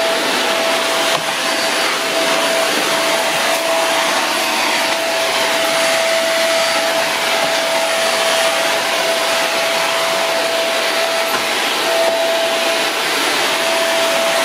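Woly cyclonic stick vacuum running steadily while vacuuming a hardwood floor: an even rush of suction air with one steady motor tone through it.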